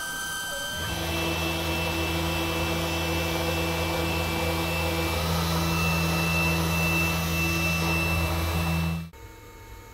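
Sainsmart Genmitsu PROVerXL 4030 desktop CNC router running its spindle while a 20-degree V-bit engraves grid lines into an MDF spoilboard: a steady motor hum with a higher whine. It builds about a second in and cuts off abruptly near the end.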